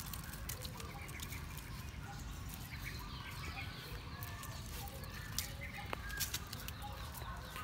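Outdoor background of small birds chirping and a chicken clucking, over a steady low rumble, with a few sharp clicks near the end.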